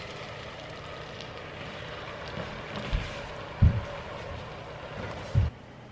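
Melted butter sizzling and bubbling in a hot frying pan as cream is poured into it, with a few dull thumps about three seconds in, again half a second later, and near the end, where the sizzle drops away suddenly.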